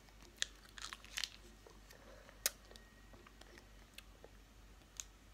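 A small plastic sauce sachet being bitten and torn open: a few faint crackles and clicks, the sharpest about two and a half seconds in.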